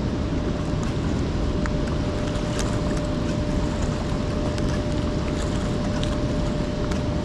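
Steady rush of fast-running water from a waterfall, with a few faint ticks over it.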